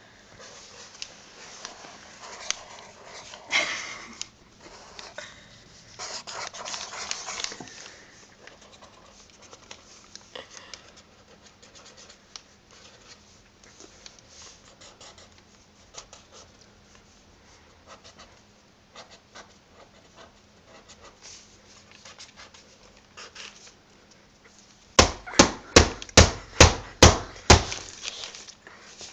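Pencil scratching across paper as a figure is sketched, in irregular strokes, with a run of about eight quick, loud back-and-forth strokes near the end.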